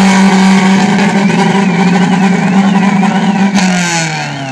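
Tuned car engine revved and held at high revs through an aftermarket exhaust, a steady loud note that drops back toward idle near the end. About a second in, a high warbling tone joins it, rising and falling about one and a half times a second.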